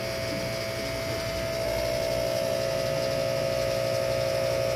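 Small aquarium powerhead humming steadily, a steady whine over a low hum, growing a little louder about a second and a half in.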